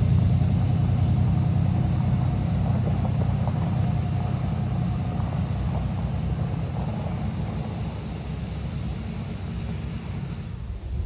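Vehicle engine running steadily with a low rumble, growing gradually fainter and dropping away near the end.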